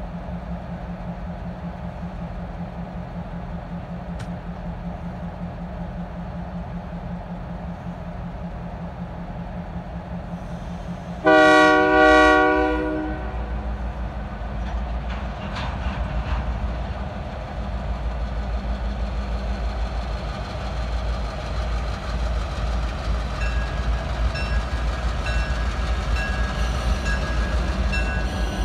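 EMD GP38-3 diesel locomotives idling, then two blasts on the locomotive horn about eleven seconds in, the signal that the train is about to move off. Afterwards the engine rumble is heavier as they take load, and a regular high ticking comes in near the end.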